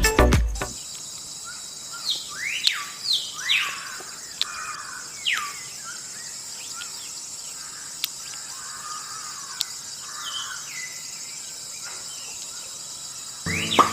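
Birds chirping with quick downward-sliding calls, several in the first few seconds and a couple more later, over a steady high insect drone.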